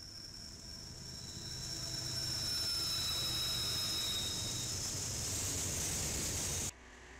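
BNSF freight train passing close by, its diesel locomotives and then tank cars rolling past with a steady rumble that builds to its loudest. A high-pitched squeal rides over it, falling slightly in pitch. The sound cuts off suddenly near the end.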